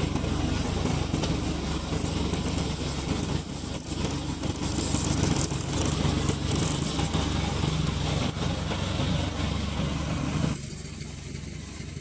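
Remote-controlled lawn mower's engine running steadily, then dropping sharply in level near the end.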